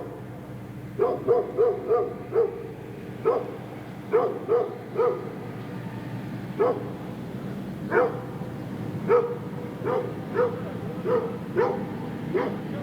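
Large dogs barking in the distance, short barks in irregular runs of two to five with pauses between, over a steady low background hum.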